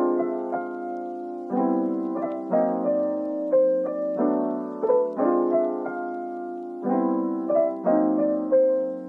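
Background music: a soft solo piano piece, chords struck about once a second and left to ring.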